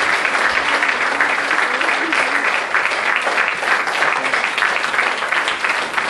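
Theatre audience applauding: a dense, steady clatter of many hands clapping, with some voices from the crowd mixed in.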